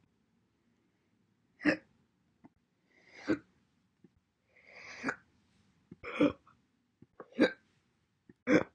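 A woman's hiccups: six short, separate hiccups about one and a half seconds apart, a few with a faint intake of breath just before.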